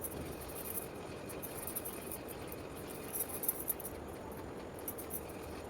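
Soft rubbing and rustling with scattered faint crackles: hands massaging oil into a baby's skin.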